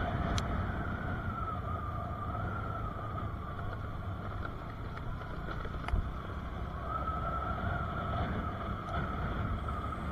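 Motorcycle engine running steadily on the move, mixed with wind noise on the microphone; a single sharp knock about six seconds in.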